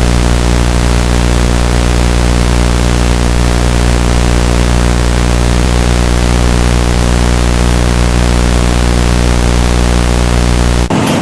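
Loud, steady static hiss over a low buzzing hum, cutting off abruptly near the end.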